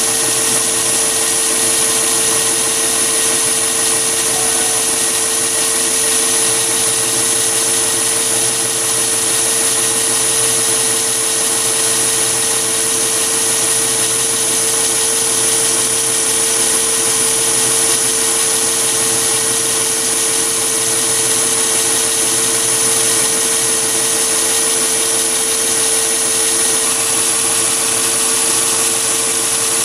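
Mini lathe running, its spindle turning an end mill that cuts a slot along an aluminium bar held in a toolpost vice: a steady motor hum with a high whine and cutting noise.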